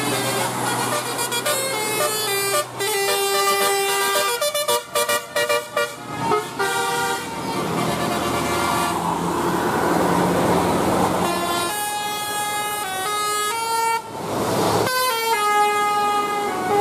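Basuri telolet air horns on a bus playing a quick melodic tune, several trumpets sounding together and stepping from note to note. The tune breaks off for a few seconds of engine and road noise in the middle, and a loud rushing noise cuts in about fourteen seconds in before the tune resumes.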